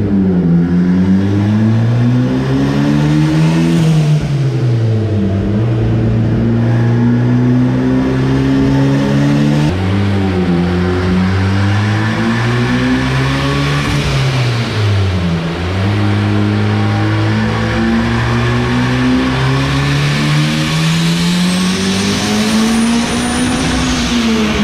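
Turbocharged Honda K20A3 inline-four running on a chassis dyno. Its revs climb and fall, hold steady for stretches, drop sharply about ten seconds in, then dip and climb again. A faint high whistle rises near the end.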